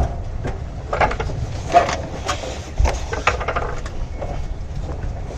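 A sharp click, then a series of irregular knocks, clicks and scrapes from metal parts being handled while a transmission is positioned on a jack, over a steady low rumble.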